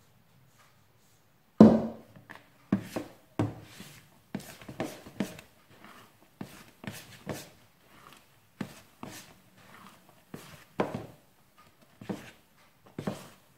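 A metal spoon stirring wet yeast dough in a plastic bowl: irregular knocks and scrapes of the spoon against the bowl, about two or three a second, beginning with a louder knock about a second and a half in.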